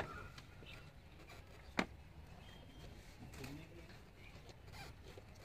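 Sharp clicks of hand work on a plastic car bumper: one at the start and a louder one about two seconds in, with fainter ticks between, as a fog lamp is fitted into the bumper with a screwdriver.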